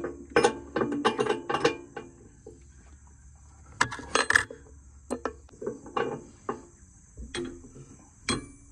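The steel mounting arm of a backhoe attachment clinking and knocking against the tractor's hitch as it is handled and lined up: a scatter of sharp metallic clinks, bunched in the first two seconds and again about four seconds in. A steady cricket chirring sits high in the background.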